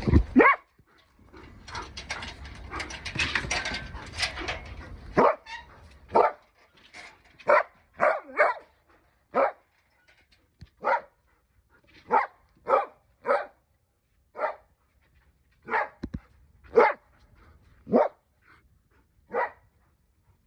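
Akita dog barking in a long series of short single barks, roughly one a second, after a few seconds of rustling noise at the start.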